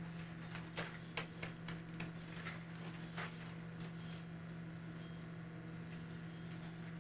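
A steady low hum, with a handful of light clicks and rustles in the first three seconds as an Easter basket is picked up and handled, then only the hum.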